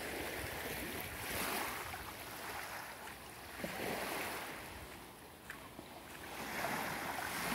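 Small waves lapping on a pebbly shore, the wash swelling and fading a few times.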